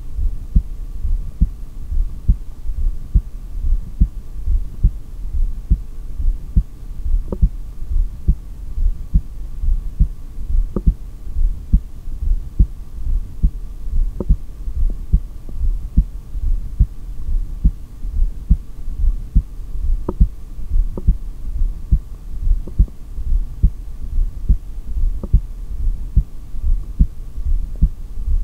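Human heartbeat picked up through a stethoscope during an empty-lung (exhaled) breath-hold, about a minute and a half into the hold: a steady, even run of low thumps. A faint steady hum lies underneath.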